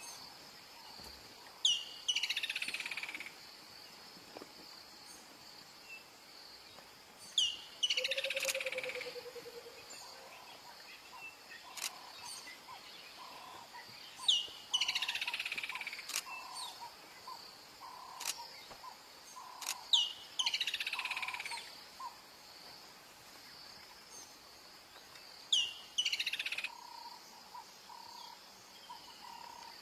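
A bird calling five times, about every six seconds. Each call is a sharp high note followed by a quick run of notes that falls in pitch over a second or so. A steady high hum runs underneath.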